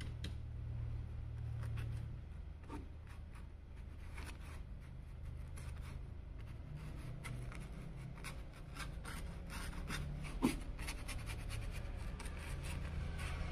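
Paintbrush scrubbing and dabbing acrylic paint onto canvas in many short, faint scratchy strokes, over a steady low hum, with one brief knock about ten seconds in.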